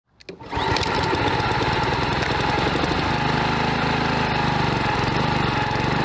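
Honda HRX217 walk-behind lawn mower's engine running steadily.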